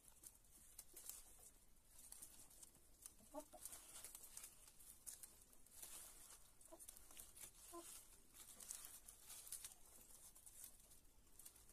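Hens pecking and tearing at leafy greens: faint rustling of leaves and quick peck clicks, with a few soft, short clucks about a third of the way in and again around two-thirds.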